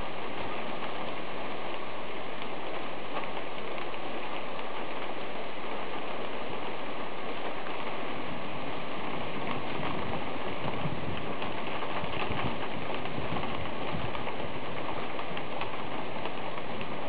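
Thunderstorm rain falling steadily: an even, dense hiss with scattered ticks of individual drops.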